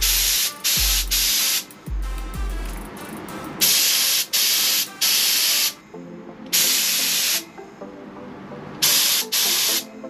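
Gravity-feed spray gun hissing in about seven short bursts of compressed air, each half a second to a second long with pauses between, as the trigger is pulled and released. The gun is giving trouble while loaded with clear coat.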